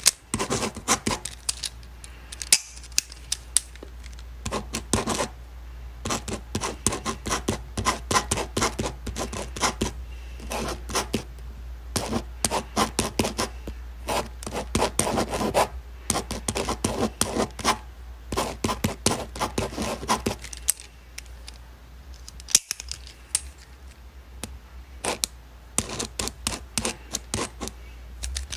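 Ballpoint pen writing on paper: quick scratching strokes and taps in bursts, with a quieter stretch about three quarters of the way through.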